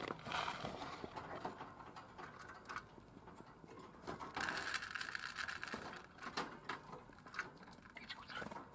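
Budgerigar seed mix rattling as it is scooped with a metal measuring spoon and poured into a plastic feeder cup, with scattered small clicks and a brief burst of rustling about four and a half seconds in.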